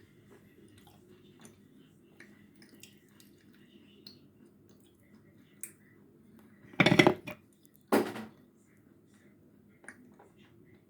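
Two loud crunches of teeth biting through sawn Khrapovsky chalk, the first a rapid crackle about seven seconds in and the second a second later, with faint mouth clicks around them.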